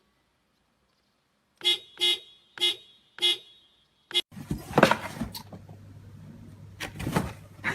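A horn sounds four short toots about half a second apart, with a fifth brief toot just after. Then a low steady hum sets in, with a few knocks and rustling.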